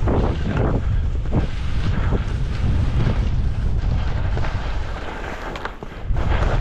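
Wind buffeting the microphone while skiing, with repeated swishes of skis turning on snow.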